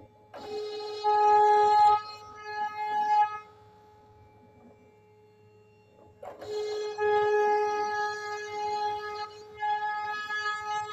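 CNC router spindle whining at one steady high pitch as its bit cuts a pattern into a wooden panel. The whine swells into a loud, buzzing cut twice, about half a second in and again about six seconds in, as the bit bites into the wood, and drops back to a faint whine in between.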